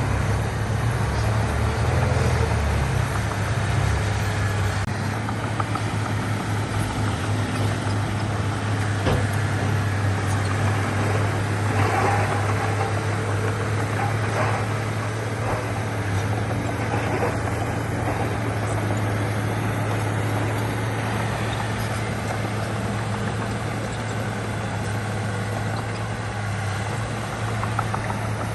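Heavy earthmoving machine's diesel engine running steadily with a deep, even hum, with a few short clanks in the middle.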